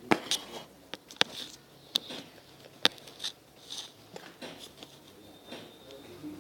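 White-glue slime being squeezed and stretched by hand, giving a string of irregular sharp sticky clicks and pops.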